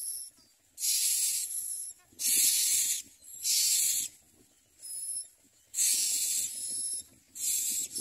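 Common myna nestlings begging: a run of harsh, hissing rasps, each about a second long, repeating about once a second with short gaps.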